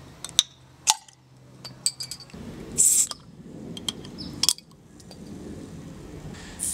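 Crown caps pried off glass bottles with the bottle opener in a DPX HEST Folder 2.0 knife's blade: sharp metal clicks and clinks of the opener on the caps, and short fizzy hisses as caps pop off, one in the middle and one right at the end.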